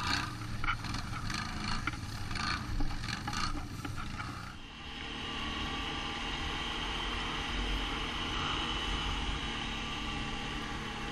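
ATV engine running, with irregular bursts of noise over it for the first four seconds or so; about four and a half seconds in the sound changes abruptly to a steady engine drone.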